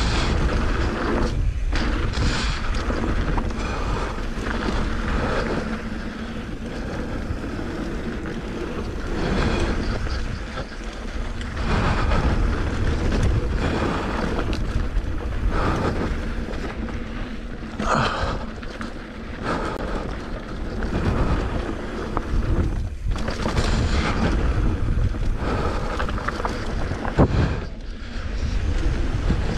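Mountain bike riding fast down a rough dirt trail: wind rushing over the camera microphone, knobby tyres on loose dirt and rocks, and the bike rattling and knocking over bumps, with one sharp knock near the end.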